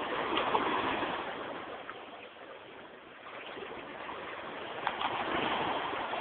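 Small sea waves washing in over shallow water at the shoreline, the rush swelling about a second in and again near the end.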